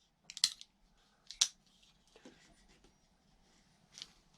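Kershaw Thistle folding knife being worked by hand: sharp metallic clicks of the blade opening and its lock engaging and releasing, a cluster about half a second in, a strong single click near a second and a half, and a faint one near the end.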